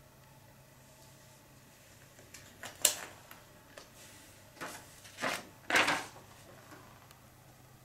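Handling noises over a faint low hum: a sharp click a little under three seconds in, then three short rustling swishes about a second apart.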